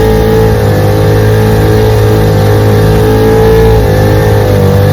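1947 Johnson HD-25 2.5-horsepower two-stroke outboard motor running steadily under way, pushing a small boat; it runs well after being restored. Its pitch wavers slightly about four seconds in.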